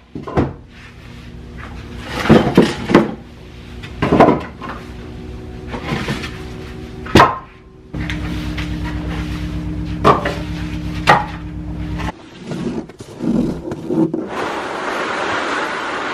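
Split firewood logs knocking and clunking against each other as they are lifted off a plastic sled and stacked, with a steady low hum for a few seconds in the middle. Near the end comes a steady hiss of the empty plastic sled being dragged over crusty snow.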